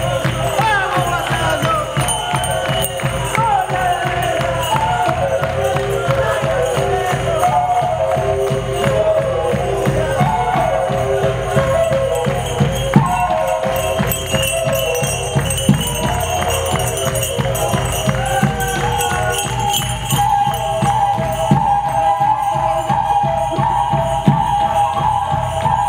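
Live Andean folk-fusion band playing: a melodic line over a steady drumbeat, filling a theatre.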